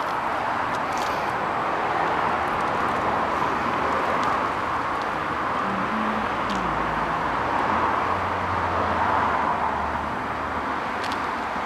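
Steady hiss of road traffic. About six seconds in, a passing vehicle adds a falling engine tone and then a low hum.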